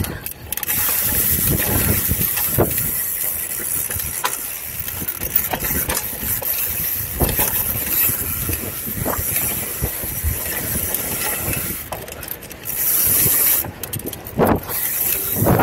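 Mountain bike descending a dirt singletrack: wind rushing over the camera microphone, with tyre noise and frequent knocks and rattles as the bike runs over bumps. The wind rush gets louder in brief gusts near the end.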